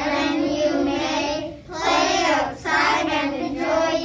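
A group of young children singing together in short phrases.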